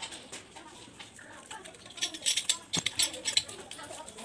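Clicks, scrapes and rustling of a chrome swan neck tap being handled and fitted to a wall fitting, beginning about two seconds in, with one sharper knock just before three seconds.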